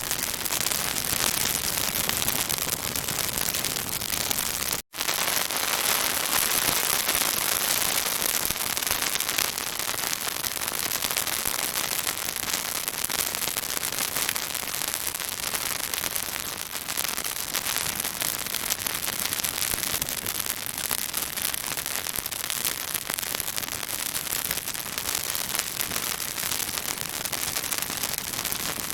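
Pine branches burning in a bonfire, crackling and popping thickly over a steady sizzling hiss. The sound cuts out for an instant about five seconds in.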